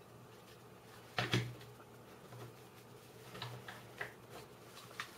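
Clicks and taps of 3D-printed plastic puzzle pieces being handled and fitted together: two sharp clicks close together about a second in, the loudest, then a few lighter clicks.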